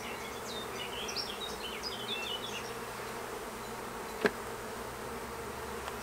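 Honeybees buzzing in a steady hum around an opened nuc box as a frame covered in bees is lifted out. A run of high chirps comes in the first few seconds, and there is one sharp click about four seconds in.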